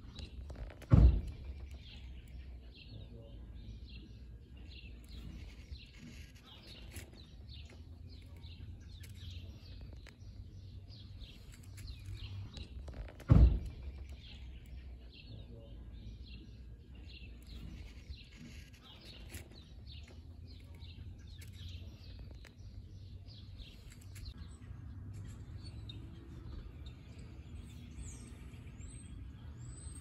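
Nestling songbirds' high, rapid begging chirps, going on continuously over a low rumble. Two loud thumps break in, about a second in and again near the middle.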